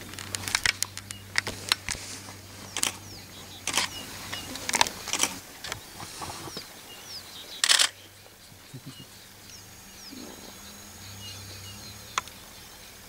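Camera shutters clicking at irregular intervals, one at a time and in a short burst near the middle. Faint bird chirps and a low steady hum sound underneath.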